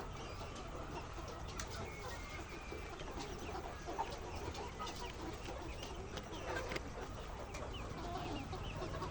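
A flock of laying hens clucking and calling, many short calls overlapping in a steady din.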